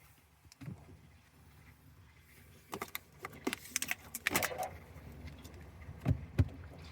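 Clicks and rattling from a cold water bottle being handled, then two short dull thumps near the end.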